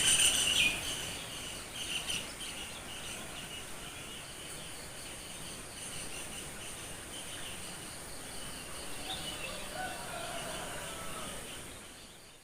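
Outdoor morning chorus of wild birds and insects: a loud pulsing insect trill drops away in the first second, leaving fainter bird chirps and insect calls, with a few sliding bird notes near the end as the sound fades out.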